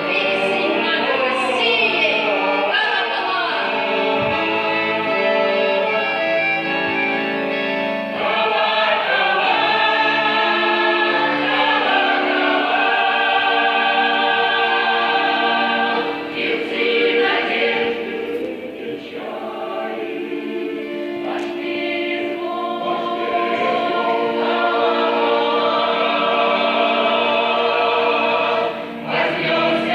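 Choir singing, many voices holding long chords, with a softer passage about two-thirds of the way through.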